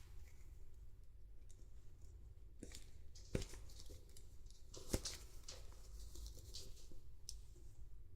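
Hands handling a doll toy and its packaging: scattered rustling and tearing noises, with two sharp clicks about three and a half and five seconds in.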